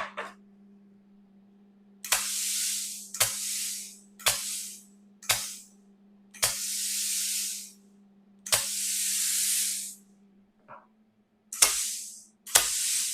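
Plasma cutter switched on and passing compressed air through its torch. About eight clicks of the air valve, each followed by a hiss of air lasting from half a second to a second and a half, over the machine's steady electrical hum.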